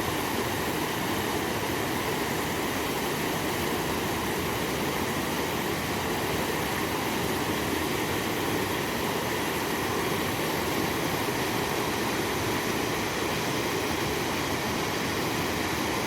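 Steady rushing of river water flowing beneath a low concrete bridge, an even noise with no breaks.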